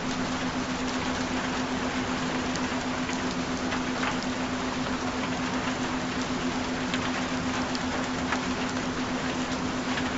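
Recorded steady rain, an even hiss with scattered drops ticking through it, over a continuous low steady hum, the track's added frequency tone.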